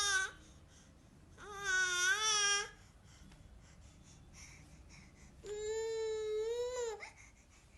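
Infant cooing: two drawn-out, high-pitched vowel sounds, each a little over a second long, with a quiet pause between them.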